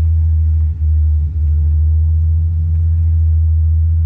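Steady low rumble of a power wheelchair rolling across a hard terminal floor, its motor and wheel vibration carried into the camera. It drops out briefly twice about a second in.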